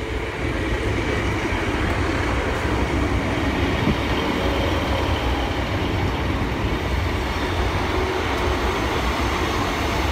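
Class 150 Sprinter diesel multiple unit running into the platform: its underfloor diesel engines and wheels on the rails make a steady noise that swells over the first half second, then holds.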